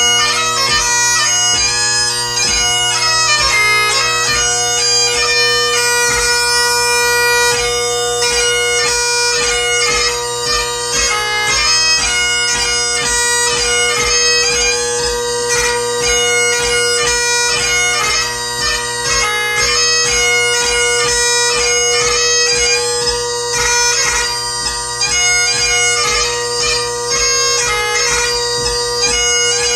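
Great Highland bagpipe played solo: the drones sound steadily beneath a chanter melody that moves quickly from note to note, part of a march, strathspey and reel set.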